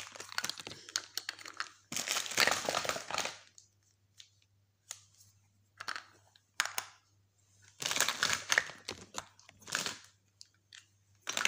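Cellophane and plastic packaging crinkling as small cosmetic compacts and tins are handled and set down among them, in two longer rustling spells about two seconds and eight seconds in, with a few short clicks between.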